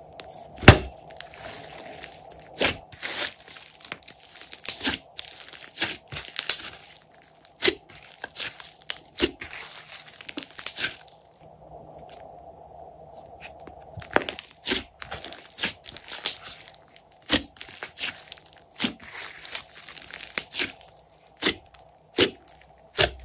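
Glossy slime being squeezed, poked and stretched by hand, giving irregular sharp wet clicks and pops. There is a quieter pause of a few seconds about halfway through.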